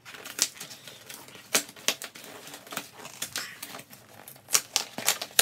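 Cardboard shipping box being torn open by hand: packing tape ripping and cardboard flaps crackling in a quick, irregular series of sharp clicks and rips, loudest near the end.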